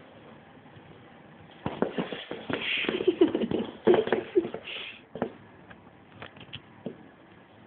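A pet turtle's shell and claws knocking and scraping on a laminate floor: a busy clatter of clicks and scrapes for about three seconds, then a few scattered single clicks.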